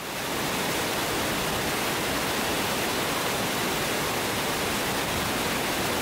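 Waterfall of several thin streams falling into a shallow pool: a steady rush of water that fades in at the start.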